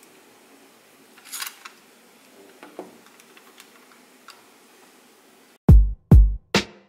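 Light plastic clicks and a short rustle as a phone is handled and pulled out of the clamp arms of a plastic car wireless charger holder. About five and a half seconds in, loud background music with heavy drum hits cuts in suddenly.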